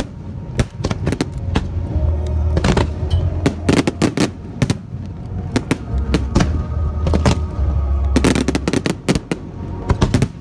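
Fireworks finale: aerial shells bursting one after another in quick, overlapping bangs, thickest about eight seconds in, with music playing underneath.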